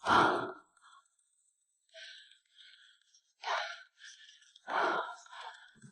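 A woman gasping and breathing hard in short bursts, the loudest right at the start, as she strains against a heavy fish on her rod.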